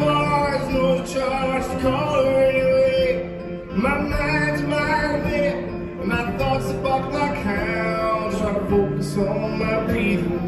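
A live solo acoustic song: a man singing with long held notes over his own acoustic guitar playing.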